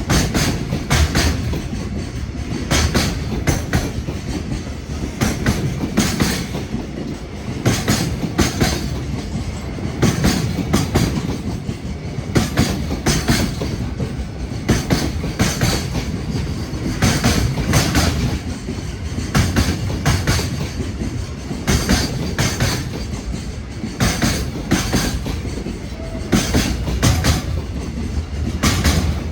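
Freight train rolling past at close range, its wagon wheels clattering over rail joints in regular clusters of clicks over a steady rumble.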